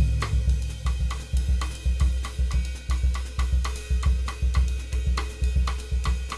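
Drum kit playing a samba groove: the tamborim rhythm kept on the kit by the hands over a steady bass drum, with snare, hi-hat and cymbal strokes.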